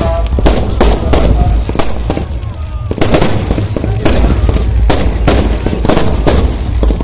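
Fireworks and firecrackers going off in rapid, irregular bangs and crackles, over a steady low rumble.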